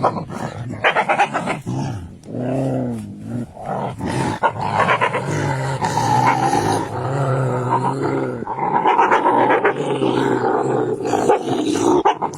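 An animal vocalising in a long run of pitched calls that waver up and down, with short breaks between them.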